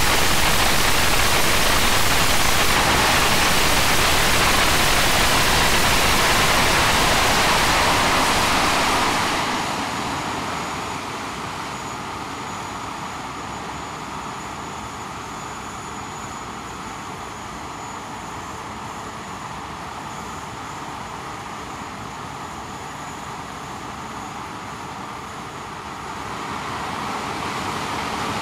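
English Electric Lightning's Rolls-Royce Avon turbojet running at high power, a loud steady roar. About nine seconds in it is throttled back to a much quieter run with a thin high whine, then spools up again near the end.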